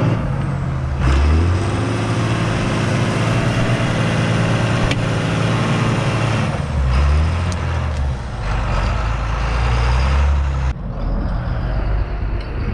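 John Deere 8200 tractor's six-cylinder diesel engine working hard while tearing tree roots out of the ground. Its note shifts as the load changes, about a second in and again past the middle, and the higher sounds fall away near the end.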